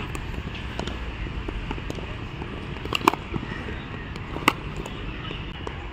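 Sharp cracks of cricket bats striking balls in practice nets, the loudest about three seconds in and another about a second and a half later, with fainter knocks between, over steady background noise.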